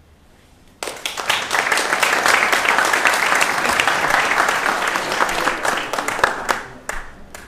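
Audience applauding: clapping breaks out about a second in, holds steady, and dies away about a second before the end.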